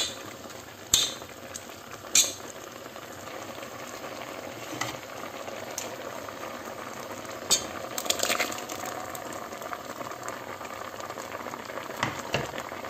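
Bitter gourd curry boiling in a pot, a steady bubbling, with a steel ladle clinking against the pot now and then as it is stirred.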